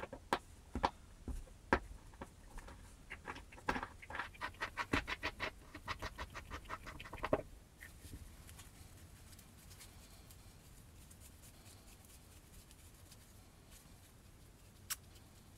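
Small metal parts of a hand drill clicking as gloved hands fit them together: a few separate clicks, then a quick even run of light clicks at about five a second that stops about halfway through, and one more click near the end.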